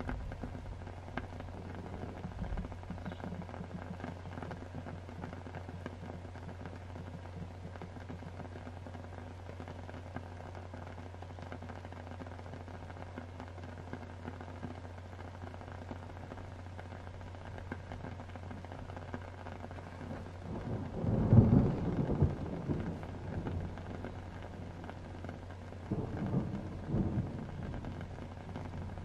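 Steady rain over a low, constant hum, with a loud roll of thunder about two-thirds of the way through that fades over a few seconds, and softer rumbles near the end.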